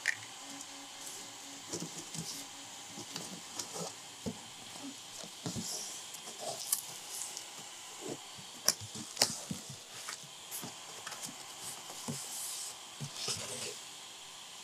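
Cardboard shipping box handled and opened by hand, its flaps folded back and a sheet of foam packing lifted off: scattered rustles, scrapes and light knocks, with a couple of sharper knocks about nine seconds in, over a faint steady hiss.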